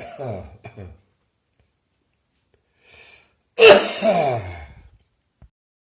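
A person coughing with bronchitis that has not yet cleared. The tail end of one cough trails off at the start, then a faint breath in, then a loud, hoarse cough about three and a half seconds in that trails off with a falling voice.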